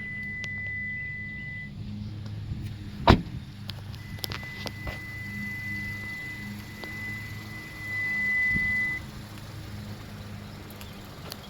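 A car running, with a steady low hum and a thin high whine that stops early on, returns about four seconds in and grows louder before cutting off near nine seconds. One sharp knock about three seconds in is the loudest sound.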